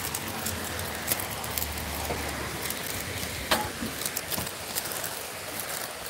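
A bicycle being walked down tiled steps, its wheels knocking on the step edges, with a sharp knock about a second in and a louder one about three and a half seconds in, over a steady hiss.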